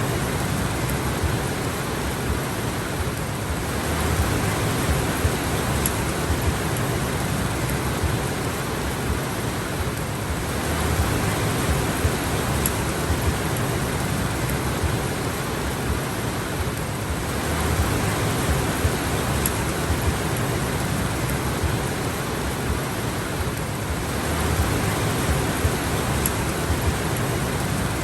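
Steady heavy rain: an even, dense hiss that swells and eases slightly about every seven seconds.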